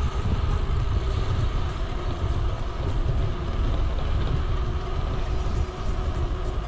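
Steady, fluttering low rumble of wind buffeting the microphone while riding a bicycle.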